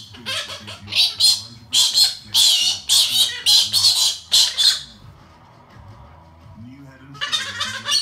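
Galah cockatoo screeching, a rapid run of about nine harsh squawks over the first five seconds, then a longer burst of screeching near the end.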